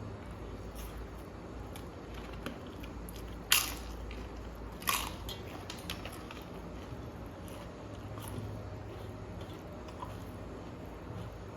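Close-up eating sounds: two loud crunches a little over a second apart, about a third of the way in, as crisp papad is bitten, then quieter chewing and mouth clicks.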